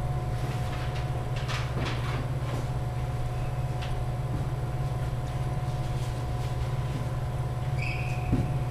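Steady low hum of the indoor sports hall, with a few faint knocks and short rubber-sole squeaks on the wooden court floor, the clearest about 8 seconds in as a rally gets under way.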